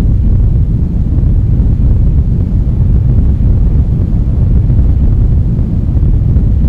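Steady, loud low rumble: a dense deep noise with no distinct tones, beats or separate events, holding an even level throughout.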